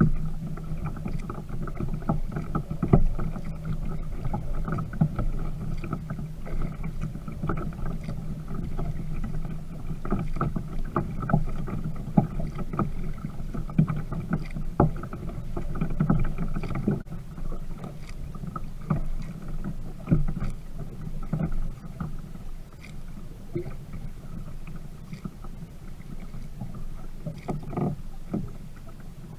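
Sit-on-top fishing kayak being paddled: irregular splashes from the paddle strokes and water washing along the plastic hull. A steady low hum runs under it for about the first half.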